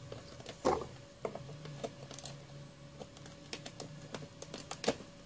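Scattered light clicks and knocks of handling as a soldering iron is plugged in and switched on, over a faint low hum.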